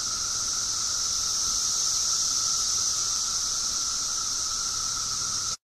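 Steady high-pitched hiss with a faint constant whine under it, cutting off abruptly just before the end.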